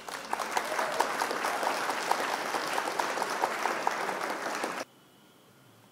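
Stock applause sound effect: a crowd clapping, cutting off abruptly near the end. It marks the reveal of the quiz answer.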